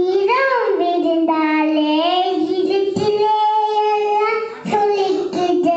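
A young girl singing into a handheld microphone, holding one long note for about four seconds, then starting a new phrase near the end.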